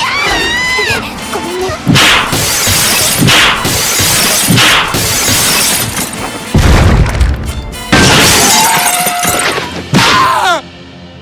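Fight sound effects over music: a short cry falling in pitch, then a run of loud crashing, shattering impacts and a heavy low thud, with another cry-like glide near the end.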